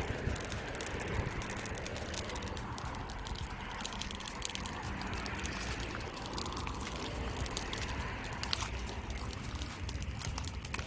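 Burning heaps of dry grass crackling, with many sharp pops over a steady hiss and a low rumble beneath.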